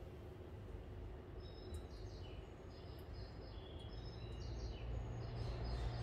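Railway station platform ambience: a low steady rumble that grows a little louder in the second half, with a run of short high chirps starting about a second and a half in.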